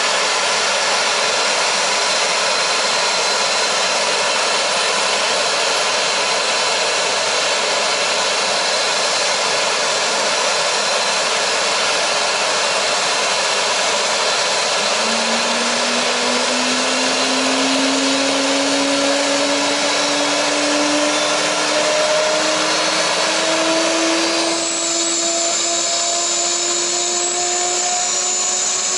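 Dornier 328JET's Pratt & Whitney Canada PW306B turbofan spooling up during engine start: a steady loud rushing jet noise, with a whine that comes in about halfway through and climbs slowly in pitch. A high whistle joins near the end.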